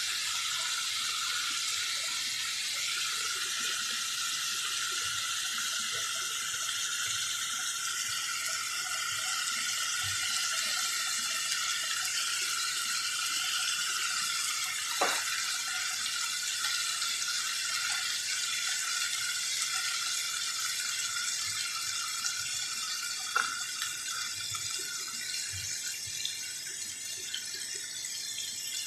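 Chicken strips with carrot, green pepper and onion sizzling steadily in a frying pan. Two short clicks cut in, about halfway through and again later.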